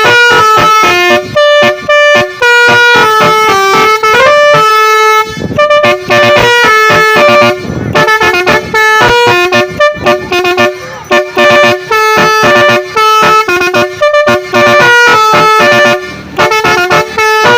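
Basuri telolet musical bus horn playing a fast melody, loud, mostly in short staccato notes stepping up and down in pitch, with a few longer held notes.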